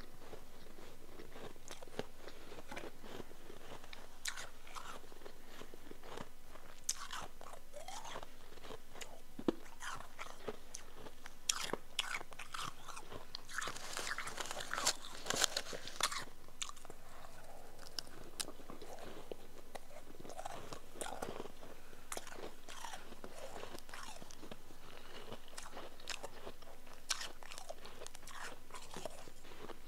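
Close-miked crunching and biting of powdery chunk ice: irregular sharp cracks, with a dense cluster of rustling and crackling about halfway through as fingers dig into ice in a plastic tub.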